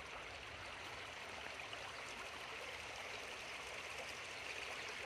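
Shallow creek water running over a flat rock slab, a faint steady babble.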